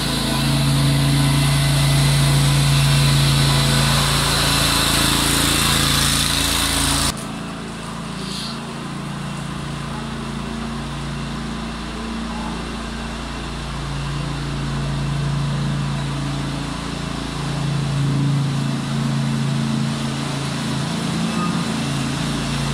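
MultiOne 2.3 EFI mini loader running steadily while it drives a screw feed pusher, loud and close at first. About seven seconds in the sound drops suddenly to a fainter, more distant engine hum, which grows louder again near the end as the loader comes closer.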